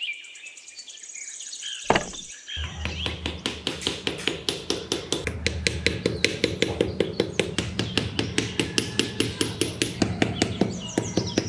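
Rapid, evenly spaced knocking like light hammering, about four knocks a second, starting after a single sharp knock about two seconds in. Bird chirps sound near the start and end.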